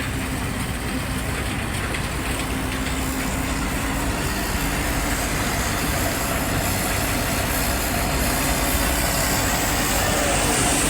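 Diesel engine of heavy farm machinery running steadily, growing slightly louder toward the end.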